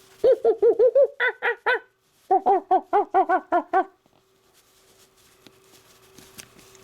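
A person's voice imitating monkey chatter: two quick runs of short rising-and-falling hoots, about eight to a run, with a brief pause between them.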